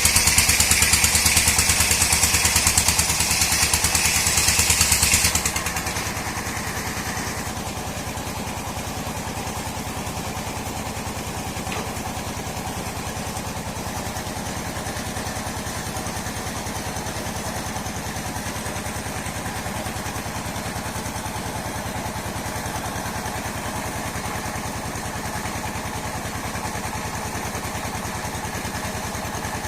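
Engine-driven sawmill cutting dry mahogany, loud with a high screeching whine for about the first five seconds. Then the whine stops and the machine's engine keeps running steadily at a lower level.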